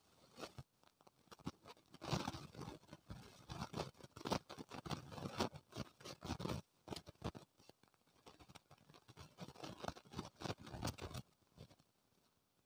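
Dry powdered dirt being crumbled and let fall by hand in a plastic bucket: a run of soft crackles and patters that dies down shortly before the end.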